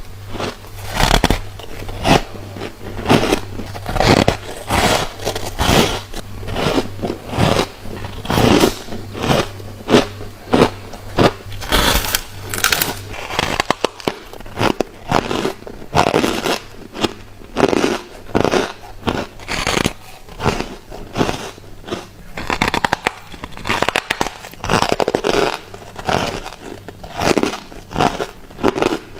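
A person biting and chewing mouthfuls of refrozen freezer frost close to the microphone: a steady run of crisp crunches, about one to two a second.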